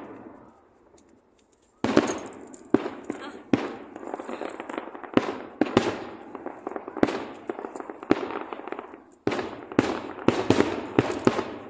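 Aerial firework shells bursting: a string of sharp bangs at irregular intervals, each with a short fading tail, starting about two seconds in and coming thick and fast near the end.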